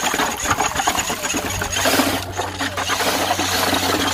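Cordless drill mixer running at speed, its paddle spinning in a bucket of water to rinse off drywall mud.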